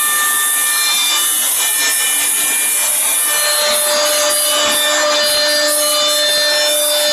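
A 2040 CNC router's spindle and bit routing grooves into a wooden door panel: a steady, loud cutting noise with a high spindle whine of several steady tones, and a lower tone joining about halfway through.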